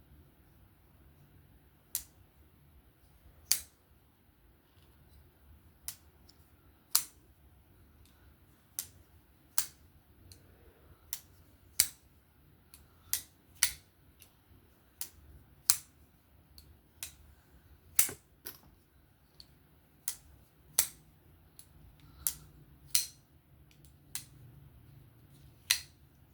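Qvist Bladeworks PE3 folding knife's blade being flicked open and snapped shut over and over on its freshly lubricated bearing pivot, giving about twenty sharp clicks, one to two seconds apart. This is the pivot being worked in to break it in after re-tensioning.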